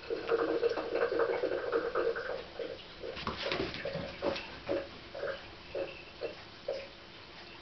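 Platydoras catfish (striped raphael) stridulating with its pectoral fin spines. It makes a long buzzing creak for about two seconds, then a series of short croaks roughly every half second.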